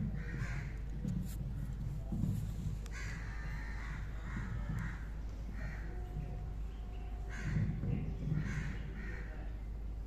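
Crows cawing again and again, harsh calls coming every second or so.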